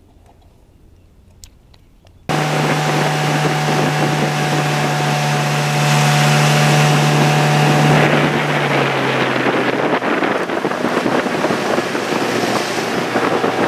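After two quiet seconds, a small boat's outboard motor cuts in abruptly, running steadily at speed with wind buffeting the microphone and water rushing past the hull. The motor's hum fades out about two-thirds of the way through, leaving wind and water noise until it cuts off suddenly.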